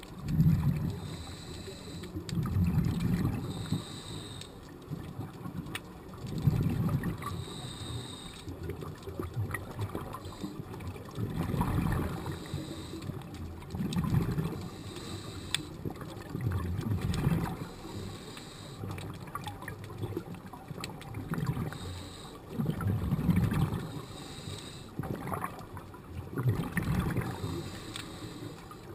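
Scuba regulator breathing heard underwater: gurgling bursts of exhaled bubbles every few seconds, with a fainter hiss between them.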